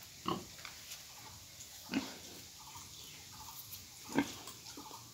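Pigs grunting: three short calls about two seconds apart, with fainter, higher calls between them.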